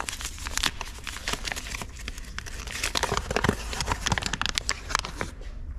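A bag of all-purpose flour being torn open and handled: a dense run of crinkling, tearing crackles that thins out near the end.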